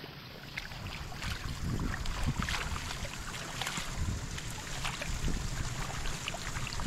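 Wind buffeting the microphone as a steady low rumble, with many small splashes and wet rustles of hands pulling rice seedlings out of a flooded seedbed.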